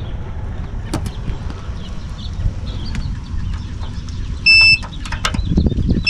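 Clamp multimeter's continuity beeper gives one short high beep about four and a half seconds in, as the test probes make contact across the RV water heater's electric heating element terminals. The low resistance of the intact element is what sets the beep off. Sharp clicks of the probes scraping on the terminals sound around it, over steady low background noise.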